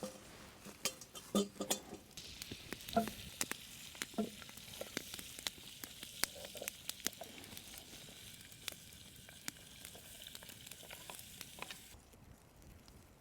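Food sizzling as it fries in a pan, with light clicks and knocks of a utensil; the sizzle cuts off abruptly near the end.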